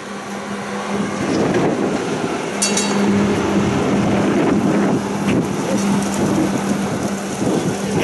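Charleroi light-rail tram passing close by: rumbling wheel and running noise that grows louder as it draws level, with a steady low motor hum. A brief high-pitched ring sounds about two and a half seconds in.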